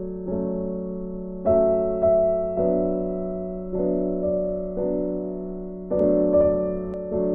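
Background music: slow, gentle piano chords struck about once a second, each fading before the next, over a held low note.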